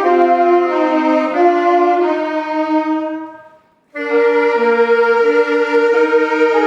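Instrumental accompaniment to a church choir anthem: held chords in a reedy, wind-like timbre that fade away about three and a half seconds in, leave a brief silence, and start again abruptly.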